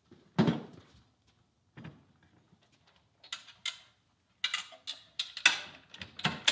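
Clunks and knocks of a Honda UT3 quarter-midget engine being set onto a metal engine stand and fitted in place: one heavy thunk about half a second in, a lighter knock, then a run of quick sharp knocks and rattles in the second half.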